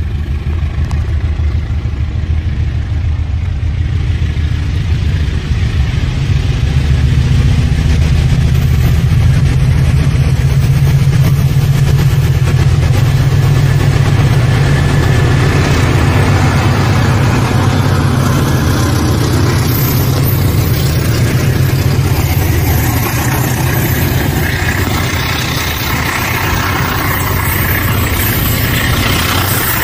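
Diesel-electric locomotive hauling a passenger train past at close range: a steady low engine drone that grows as the locomotive draws level about halfway through. Then the wheel-on-rail noise of the passing coaches takes over and rises towards the end.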